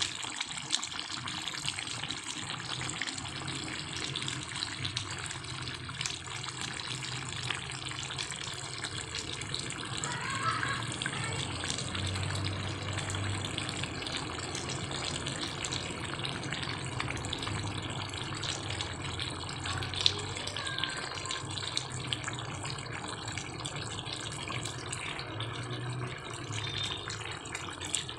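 Chicken afritada simmering in a pan of tomato sauce: a steady bubbling hiss, with one sharp click about twenty seconds in.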